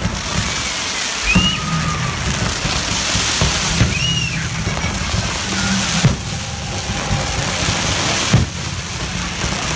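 A fireworks finale crackling densely, like heavy rain, with a few sharp booms from bursting shells about a second in, about six seconds in and near the end. Music plays underneath.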